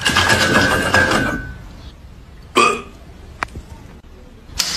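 Dog vocalizing: a rough, rasping growl for about a second and a half, then a short yelping bark about halfway through and another near the end, with a sharp click between them.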